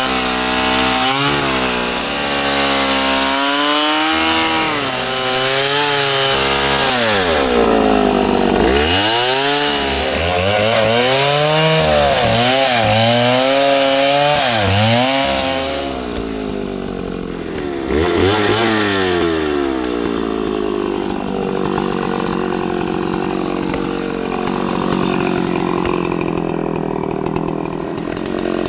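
Chainsaw cutting into a large tree trunk, its engine pitch repeatedly rising and dipping as the chain bites into the wood. From about halfway through it runs steadier, lower and a little quieter.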